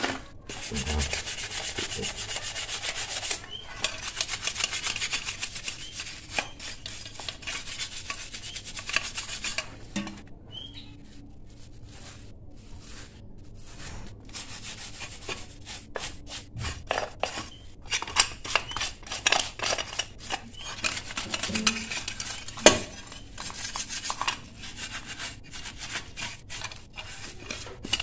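Stiff hand brush scrubbing thinner-softened paint off an aluminium Yamaha RX-King engine case cover in quick back-and-forth strokes. The scrubbing eases off for a few seconds midway and then starts again. There is one sharp knock of the metal part being handled a little before the end.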